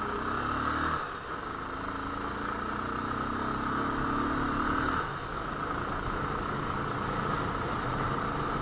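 Motorcycle engine running as the bike rides along. Its pitch climbs slowly for a few seconds, then falls suddenly about five seconds in.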